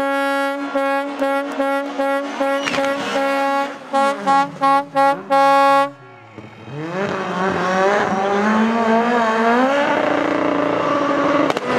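A loud horn held on one note in quick pulses, then a few short blasts and one longer one, over a rally car's engine dropping in revs. It cuts off about six seconds in, and the rally car's engine is then heard accelerating, its pitch rising steadily.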